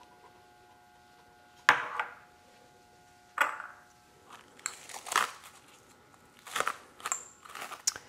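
Kitchen utensils and containers being handled: a sharp knock just under two seconds in, another about three and a half seconds in, then a run of quicker clicks and clatters.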